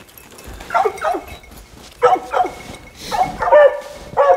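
Hunting hounds barking at a treed mountain lion, in short calls that fall in pitch at the end, mostly in quick pairs about a second apart.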